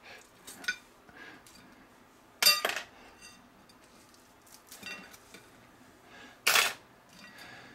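Thin metal skewers clinking and scraping as chicken pieces are pushed off them onto a plate. There are two loud ringing clinks, about two and a half seconds in and again near the end, with light taps between.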